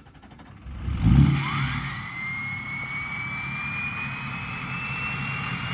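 Diesel engine with a KC stage 1 ten-blade turbocharger, blipped about a second in: the loud turbo whistle sweeps up quickly, then keeps climbing slowly in pitch over the steady engine rumble.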